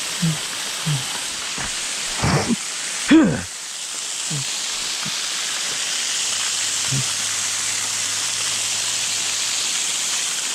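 Steady rush of a small waterfall splashing down over rocks, with a few brief thumps in the first few seconds, the loudest about three seconds in.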